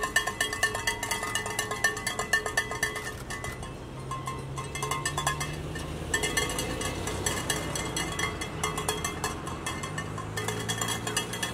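A cowbell shaken rapidly and continuously, its clanks coming several times a second, breaking off for a few seconds midway and stopping just before the end. Under it, the low steady hum of slow-moving cars passing.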